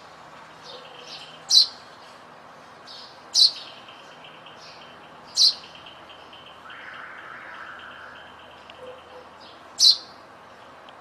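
Sparrow chirping: four loud, sharp single chirps spaced a second or more apart, with fainter chirps between them and a faint steady high tone in the background.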